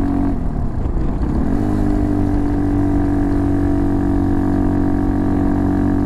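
RPS Hawk DLX 250 dual-sport motorcycle's single-cylinder engine running under way, its stock exhaust with the baffle cut out. The revs dip briefly about half a second in, climb back within the next second, and then hold a steady cruising note, with wind noise underneath.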